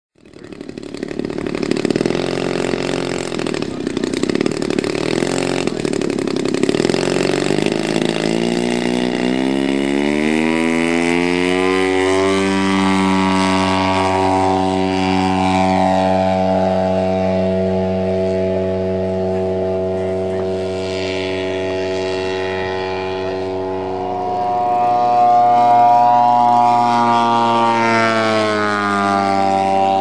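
Engine of a 40% scale radio-controlled Piper Pawnee model. It runs rough at low throttle, climbs in pitch over a few seconds as it is throttled up for takeoff, then holds a steady high drone. Near the end it grows louder and drops in pitch as the plane passes close by.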